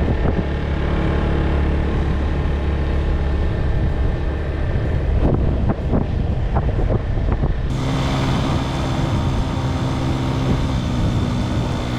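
Motor scooter engine running steadily while riding along, with wind noise on the microphone. The sound turns suddenly hissier about eight seconds in, and there are a few knocks shortly before.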